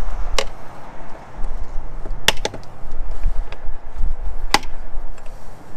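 Wind buffeting the microphone as a fluctuating low rumble, with four sharp clicks or knocks, two of them close together about two seconds in.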